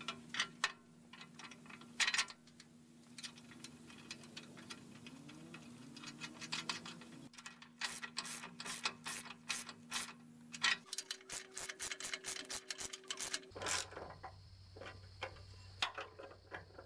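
Socket ratchet wrench clicking as a bolt on a hydraulic cylinder's mounting is turned: runs of quick clicks, about five a second, broken by short pauses and a few louder metal clinks of the tools.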